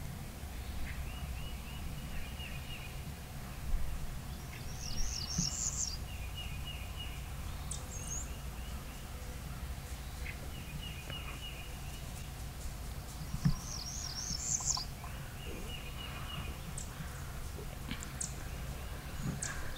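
Wild songbirds singing: a short trilled phrase repeated every few seconds, and twice a higher, quicker twittering song, over a steady low background rumble.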